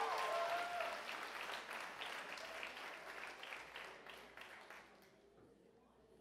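Audience applause dying away, thinning to a few scattered claps before fading out about five seconds in.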